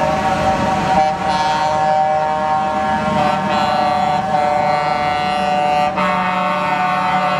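Truck air horns sounding a loud, steady multi-note chord, held almost without pause and briefly broken about one, three and six seconds in, over the low hum of the passing trucks.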